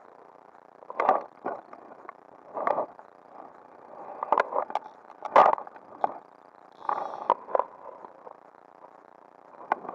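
Irregular scrapes and knocks of handling close to the microphone as the fly rod's cork grip, reel and a jacket sleeve rub against the camera, over a faint steady hiss.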